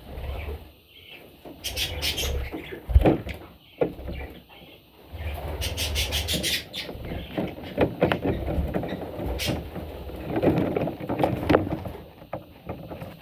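Baby budgerigar chicks squeaking and cheeping in short bursts, mixed with knocks and rustling, the loudest knock about three seconds in.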